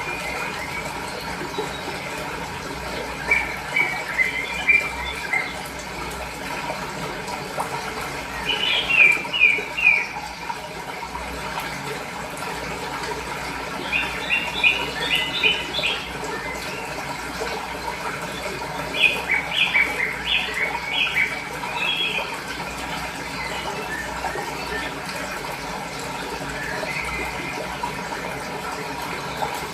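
Fresh water flowing steadily, with small birds chirping over it in short bursts of quick repeated notes every few seconds.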